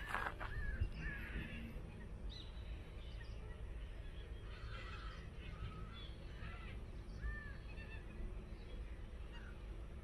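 Wild birds calling: a loud harsh call at the start, then scattered short chirps and calls, over a steady low background rumble.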